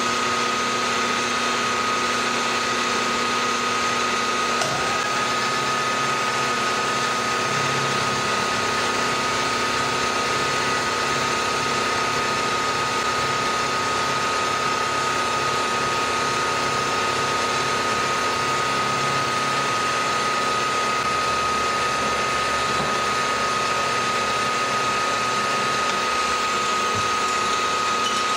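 Milling machine running with an insert face mill cutting across an aluminum block: a steady high whine over even cutting noise.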